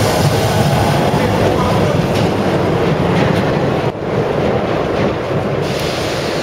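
Osaka Municipal Subway 20 series train departing the station and running away along the track, wheels clattering on the rails. There is a sudden short dip in the sound about four seconds in.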